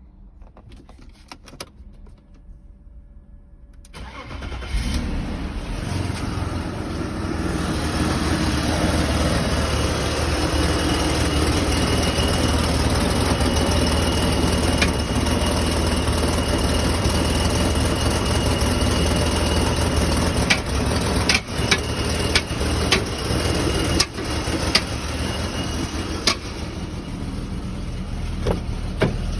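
BMW E39 engine cold-starting about four seconds in after a few clicks, then idling steadily. Several sharp knocks stand out in the later part: the cold-start knock the owner is showing.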